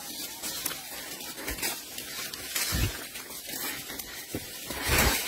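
Crackling and rustling of fresh pea pods as macaques pick them from a crate and chew them, over a steady hiss, with a few dull thumps, the loudest near the end.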